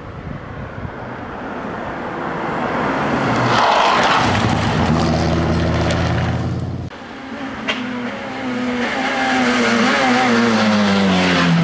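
Two rally cars at racing speed, one after the other. The first approaches and slides past with its engine running hard and tyres hissing on the loose surface. After an abrupt change a few seconds in, a Renault Clio rally car approaches, its engine climbing in pitch as it accelerates.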